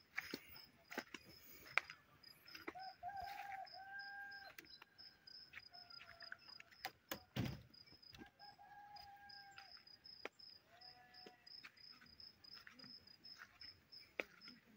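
A rooster crowing faintly, twice (about three and eight seconds in), over a steady, evenly pulsed high insect chirping. Scattered clicks and a single thump about seven and a half seconds in.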